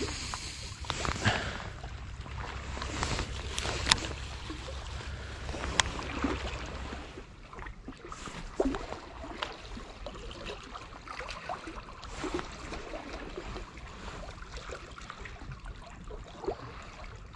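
Lake water sloshing and lapping at the shore, with a low wind rumble on the microphone for the first several seconds and a few small sharp clicks.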